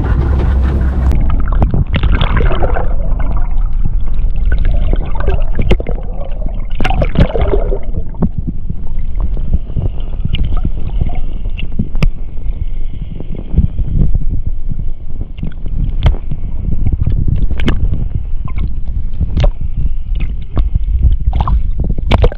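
Water sloshing and gurgling against a small boat, under a heavy steady low rumble, with scattered sharp knocks.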